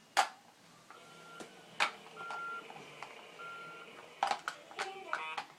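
Three short, steady electronic beeps at one pitch, about a second apart, after a sharp click at the start. Scattered clicks and knocks come near the end.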